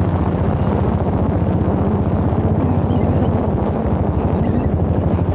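Royal Enfield Bullet's single-cylinder engine running steadily while riding, with wind buffeting the microphone.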